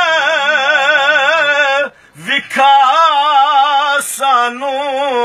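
A man singing a naat unaccompanied, holding long wavering notes, with a short pause for breath about two seconds in.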